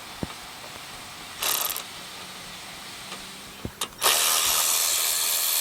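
A hand ratchet clicking briefly about a second and a half in, with a few single metal clicks. About four seconds in, a loud steady rushing noise with a low hum starts and carries on.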